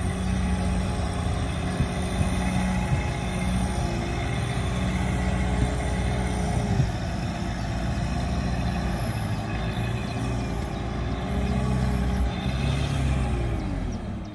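Sherp 10x10 all-terrain vehicle's engine running steadily as it is driven in a demonstration, its pitch shifting slightly and dipping then rising again near the end.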